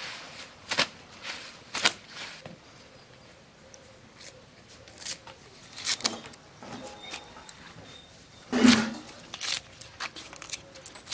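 Potato leaves being plucked from their stems by hand: scattered crisp snaps and rustles of leaves and stalks, with a louder rustle about three-quarters of the way through as leaves are dropped into a woven bamboo basket.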